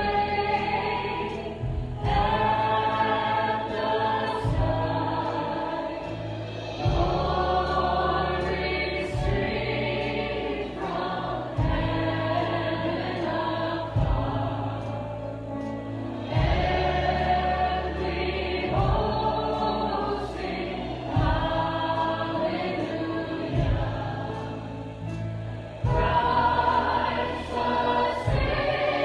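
Worship song sung by a group of voices over instrumental accompaniment with a bass line that changes about every two seconds.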